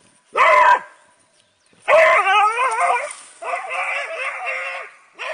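A dog vocalizing: one short bark-like call, then two long howling calls whose pitch wavers up and down, and another starting near the end.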